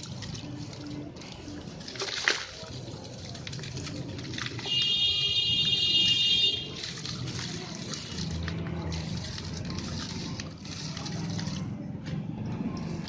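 Red sand-cement chunks crumbling and crunching, with a sharp crack about two seconds in. A steady high whistle-like tone sounds for about two seconds near the middle.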